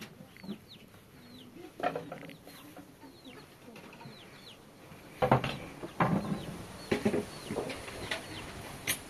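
Chickens: many short, high, falling peeps repeated throughout, with clucking. A few louder sharp sounds come about two, five and six seconds in.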